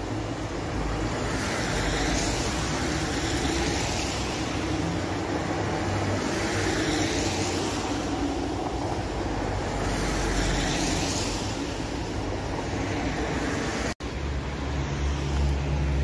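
Gloved hands scraping and scooping fresh snow on the ground, a soft hiss that swells every few seconds over a low rumble. About two seconds before the end it cuts off abruptly and a steadier low rumble follows.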